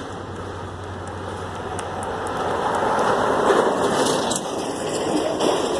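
Freight train cars rolling past: a steady rush of steel wheels on the rail, with a low hum that fades out about halfway through. The rush grows louder from about three seconds in.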